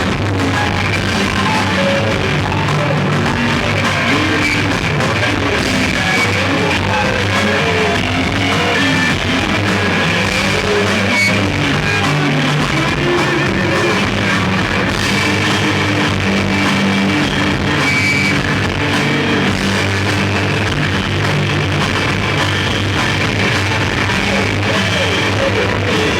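Live rock band playing a loud, dense noise passage: distorted electric guitars with wavering, bending tones over a steady droning low note.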